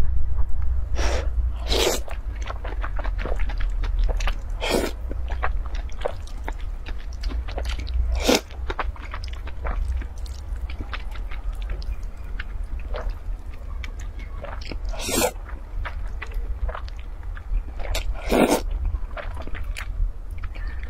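A person slurping and chewing black bean sauce noodles (zhajiangmian) close to the microphone, with a loud slurp every few seconds and wet chewing between, over a steady low hum.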